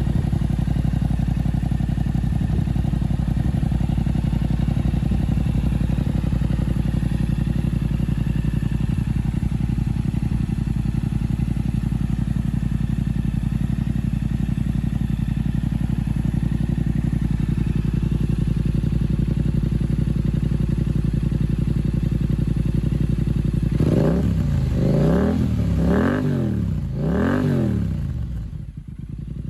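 Yamaha YZF-R7's parallel-twin engine with an aftermarket exhaust idling steadily, then revved three times in quick succession near the end, each rev rising and falling in pitch.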